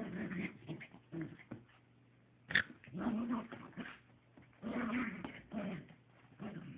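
Miniature pinscher growling in short bursts, about six of them, while it shakes and tugs at a toy, with one short sharp high-pitched sound about two and a half seconds in.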